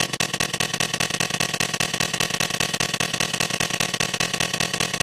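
The US Emergency Alert System attention alarm layered on itself an enormous number of times, merged into a loud, harsh wall of noise with many steady tones stacked together and a fast flutter.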